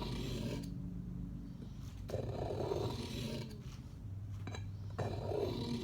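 Swiss Army knife blade drawn in a few slow, scraping strokes across a medium-grit diamond sharpening stone, over a steady low hum.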